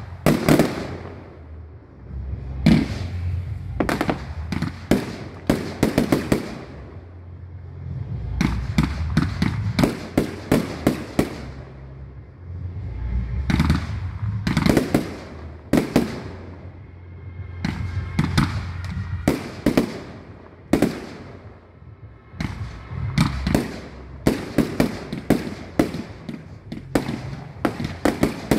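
Fireworks display: aerial shells bursting in rapid volleys of sharp bangs and crackles, several salvos with short lulls of low rumble between them.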